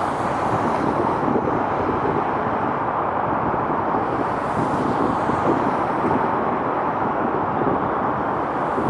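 A steady, even outdoor roar of noise with slight swells and no distinct events.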